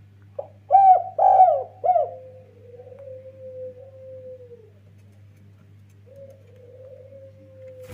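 Spotted dove (derkuku) singing: a short note, then three loud arched coos in quick succession, followed by a long drawn-out lower coo that slowly falls in pitch. A second long coo begins about six seconds in, over a steady low hum.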